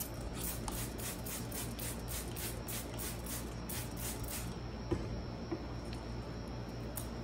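Thin plastic trash bag crinkling and rustling as it is handled and pulled down over a bucket, a quick run of crackles for about the first four and a half seconds, then only a few faint rustles. A steady low hum lies underneath.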